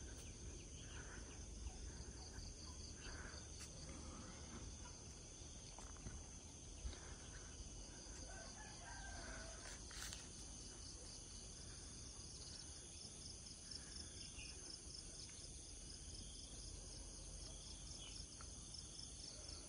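Faint roosters crowing now and then over a steady, high, pulsing insect trill.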